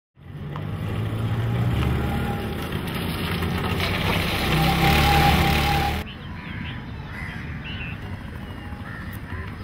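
A motor vehicle running close by, its engine hum growing louder for about six seconds. It then gives way abruptly to quieter outdoor ambience with crows cawing and other birds calling.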